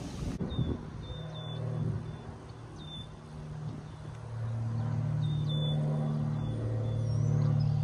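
A low engine drone with a few steady pitches, growing louder from about halfway and easing off at the end, with short bird chirps repeating over it.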